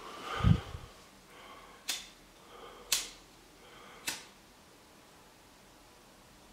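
BIC disposable lighter's flint wheel struck three times, three sharp clicks about a second apart, each with a soft rasp just before it; the third strike sparks and lights the flame. A low thump of handling comes first, about half a second in.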